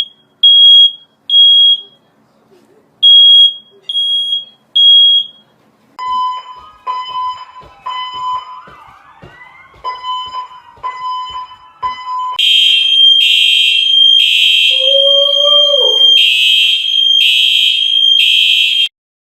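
Fire alarms sounding. First a high-pitched alarm beeps in two sets of three short beeps. Then a lower beep repeats about once a second with clicks behind it, and then a loud, high, unbroken alarm tone pulses about once a second and cuts off suddenly near the end.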